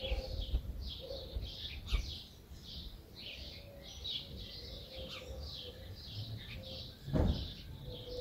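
Small birds chirping in quick, repeated short notes, several a second, over a low rumble. A brief louder noise comes about seven seconds in.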